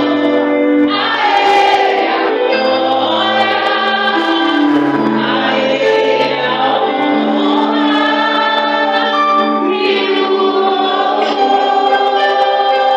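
Gospel worship music: a choir singing over held low notes and chords that change every second or two.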